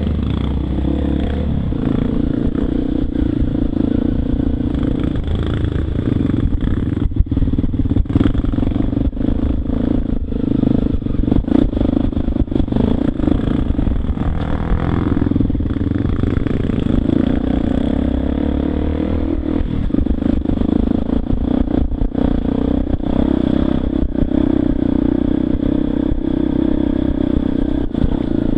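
Enduro dirt bike engine running at low to middling revs, the note rising and falling with the throttle, with frequent knocks and clatter from the bike over a rough dirt trail.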